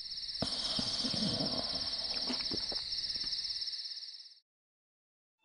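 Crickets chirring in a steady high trill, with a few soft low knocks underneath; it cuts off abruptly about four seconds in, leaving silence.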